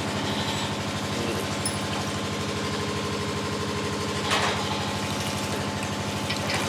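A steady drone from a running motor or small engine, with a fast even pulse. Over it, brief wet squelches and drips as grated coconut is squeezed by hand and its milk runs into a steel pot, the loudest about four seconds in and another near the end.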